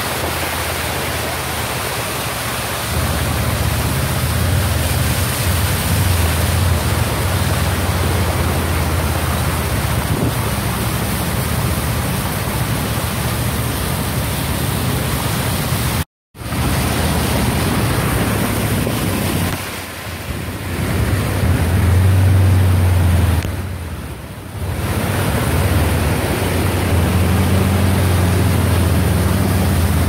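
Steady rushing noise of wind and water on a flooded city street, with a low rumble of traffic. It breaks off for a moment about halfway through.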